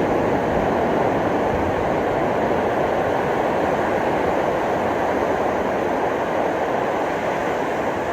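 Steady wash of ocean surf breaking on a beach, an even rushing noise with no distinct breaks.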